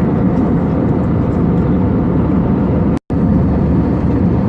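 Steady low cabin noise of an Airbus A320 in flight, engine and airflow noise heard from inside the cabin. About three seconds in it cuts out for an instant.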